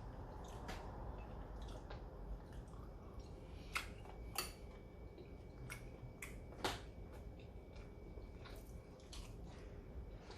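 Faint eating sounds at a meal table: chewing with scattered light clicks of utensils on dishes, three of them sharper, about four, four and a half and six and a half seconds in.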